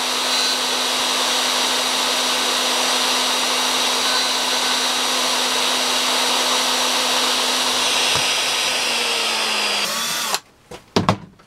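Hitachi plunge router with a high-speed steel wood router cutter milling a slot in 5 mm aluminium strip: a loud, steady motor whine with the cutter's grinding noise over it. The pitch sags slightly and the sound cuts off sharply about ten seconds in, followed by a few knocks.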